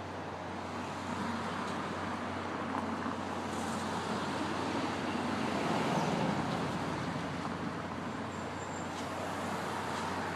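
Street traffic noise, swelling as a vehicle passes and loudest about six seconds in, over a steady low hum.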